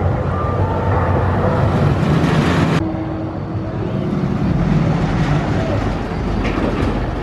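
Arrow Dynamics mine train roller coaster train running along its steel track, a steady rumble. It breaks off abruptly about three seconds in, then a low rumble builds as the train approaches again.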